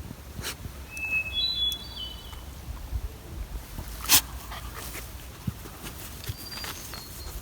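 Outdoor nature ambience with a short run of high bird chirps about a second in and a few sharp clicks or snaps, the loudest about four seconds in.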